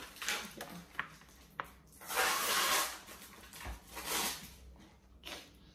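Disposable aluminium foil pan being handled and lifted off the counter: a few light clicks, then a crinkling, scraping rustle lasting about a second, and a shorter one a little later.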